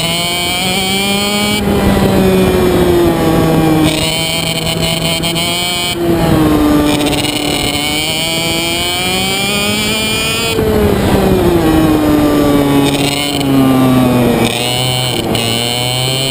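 IAME Parilla Reedster KF1 125 cc two-stroke kart engine at racing speed, heard from on board the kart. Its note climbs as it accelerates and drops as it slows for corners, several times over.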